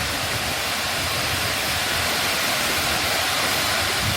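Aberdeen Waterfall, about 98 metres high, falling into its pool in a steady, unbroken rush of water. The fall is at its narrower dry-season flow.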